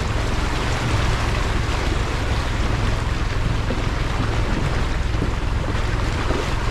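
Toyota Prado 120 four-wheel drive's engine running with a low rumble under a steady rushing noise of water and wind as it drives across the Pentecost River crossing.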